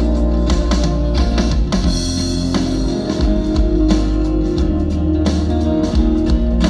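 Instrumental passage of a pop-rock song, with guitar, drum kit and heavy deep bass, played back through a Bluetooth speaker with a 10-inch bandpass subwoofer.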